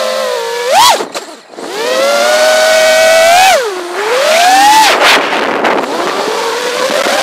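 Brushless motors of a 5-inch FPV freestyle quadcopter (2206 2300kv motors on three-blade props) whining, the pitch rising and falling with the throttle. The throttle is cut briefly about a second and a half in, then punched back up.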